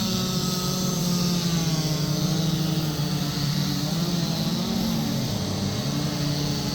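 Several gas chainsaws running at once, their engine tones shifting up and down in pitch as they cut.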